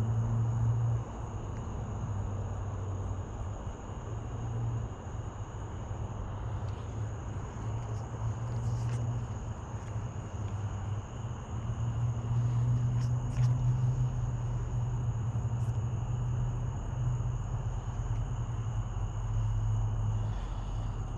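Steady chorus of crickets or other night insects, two constant high-pitched trills, over a low droning hum that swells and fades. A few faint clicks come in about halfway through.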